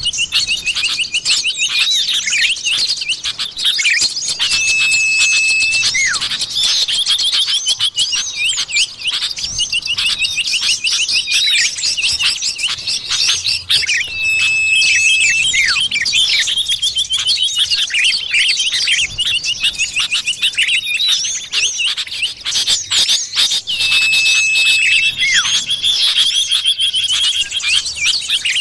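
Bird-luring recording of common iora (cipoh) calls: dense, busy chirping and trilling of small birds. A long, level whistle comes three times, the whole sequence repeating about every nine to ten seconds as a loop.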